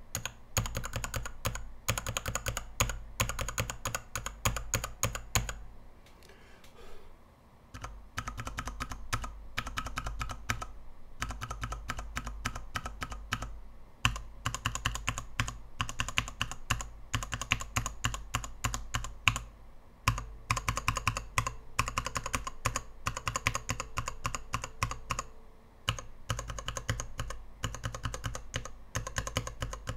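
Mechanical keyboard switches on a KBDfans 72-switch tester, with an acrylic base and XDA-profile dye-sub keycaps, being pressed in quick runs of clacks. There is a short lull about six seconds in, then the pressing resumes.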